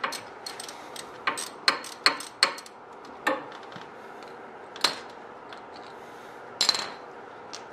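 Hand wrench working the wheel hub bolts loose from behind the steering knuckle: sharp metal clicks, about two or three a second at first, then single clicks a second or more apart and a brief metallic rattle near the end.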